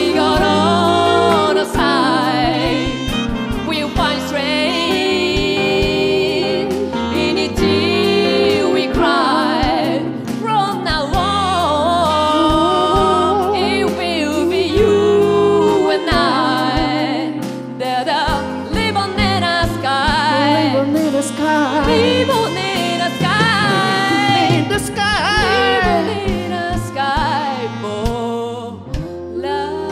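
Live pop band performing a song: a woman and a man singing over drums, electric guitar and keyboard, with a steady drum beat.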